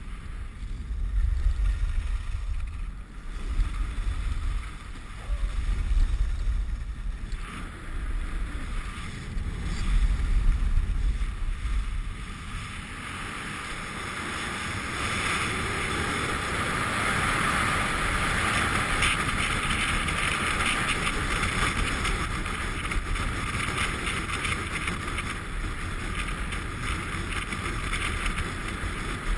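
Wind buffeting the microphone in low gusts for about the first twelve seconds, then a steady hiss of riding over groomed snow at speed.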